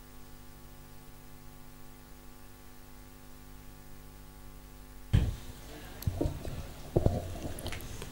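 Steady electrical mains hum through the microphone and PA system. After about five seconds it gives way to a few low thumps roughly a second apart.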